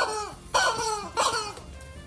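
Yellow rubber chicken toy squawking three times in quick succession as the pug presses it, each squawk sliding down in pitch.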